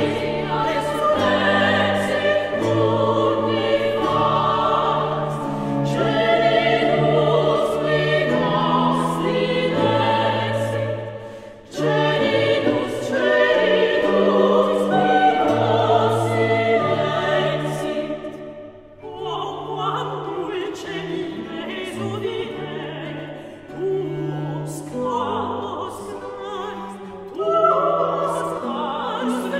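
An early Baroque Latin sacred motet: women's voices singing in several parts over an instrumental bass line that moves in held steps. The music drops briefly about twelve and about nineteen seconds in.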